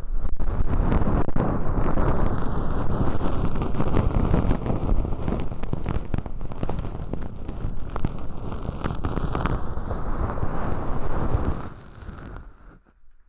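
Close, loud crackling and rustling of thin, crispy, sawdust-like fake earwax being scraped and crushed inside a binaural microphone's ear canal. It stops about twelve seconds in.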